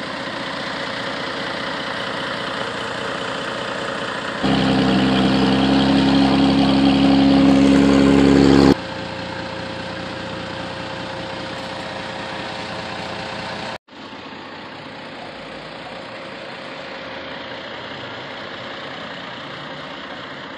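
Car engine idling steadily, heard from under the car at an exhaust pipe whose break at the catalytic converter and resonator has been sealed with heat-wrap tape and a clamp. The exhaust sounds like it is running without a leak. The sound is louder and deeper for about four seconds from roughly four and a half seconds in, then cuts back to a steady idle and drops a little quieter after a short break about fourteen seconds in.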